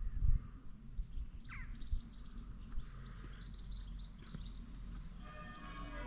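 Small birds chirping and twittering, over a low outdoor rumble with a couple of thumps near the start. About five seconds in, church bells begin ringing, several tones sounding together.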